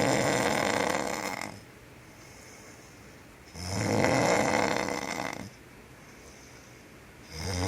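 A man snoring in his sleep, laboured, as if breathing is hard for him. A rasping snore comes about every four seconds and lasts around two seconds, with quiet gaps between; the last one starts near the end.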